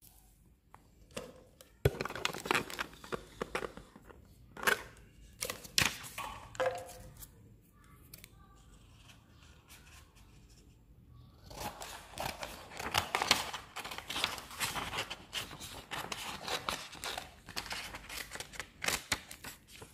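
Small scissors snipping through a sheet of white HVS printer paper: a run of crisp cuts, a lull of a few seconds, then a longer run of quick, steady cuts.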